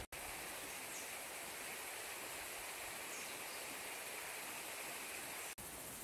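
Steady, even outdoor background hiss with no footsteps or other distinct events, broken by two split-second dropouts at edit cuts, just after the start and near the end.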